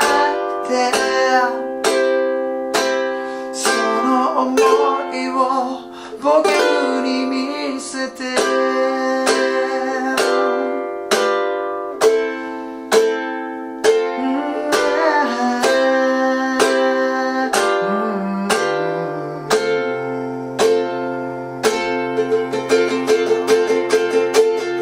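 Ukulele strummed in a steady rhythm through simple chords, with a man singing along over the first part, moving into the song's ending chords.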